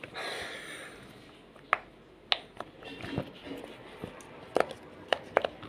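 Silicone pop-it fidget toy being handled and pressed: a brief rustle, then several sharp, irregularly spaced pops as its bubbles are pushed through.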